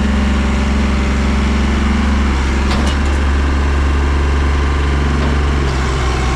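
Mahindra JIVO 365 compact diesel tractor engine running steadily under heavy load, straining against a chained truck in a tug-of-war; its note shifts slightly a little over two seconds in.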